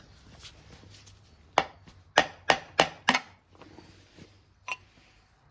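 Sharp knocks and taps of hand tools on the Mercury 4 hp outboard engine's powerhead as a cover is worked off, exposing the water cooling channels: five quick knocks in a row, then one more a little later.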